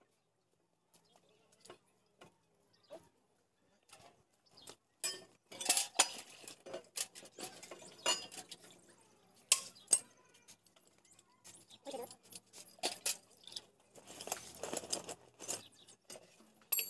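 Irregular metallic clinks and clicks of tools and parts being handled while a hand-pump tubewell is worked on, sparse at first, with busier clattering about five seconds in and again toward the end.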